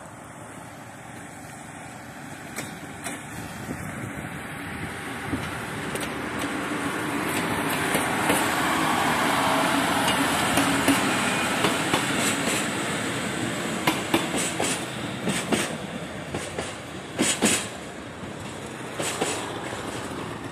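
A GW Train diesel railcar passing close by: its engine and wheel noise grows to a peak about halfway through. Its wheels then clack in a run of sharp clicks over the rail joints as it moves away and the sound fades.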